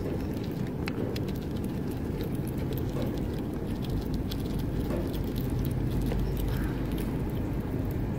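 Red squirrel nosing and nibbling at hazelnuts on a wooden board: a patter of small clicks and taps, thickest in the first half, over a steady low rumble.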